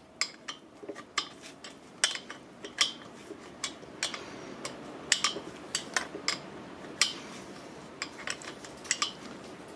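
Steel open-end wrenches clicking and clinking against an S&S Quickee adjustable pushrod as its adjuster is turned a turn at a time: irregular sharp metal ticks, a few a second.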